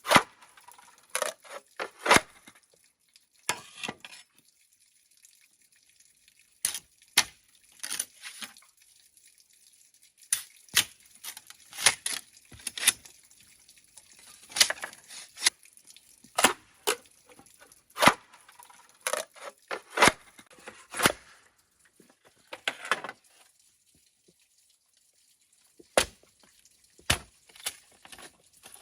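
Irregular sharp knocks and cracks of bamboo being cut and split by hand, sometimes in quick pairs, with short pauses between.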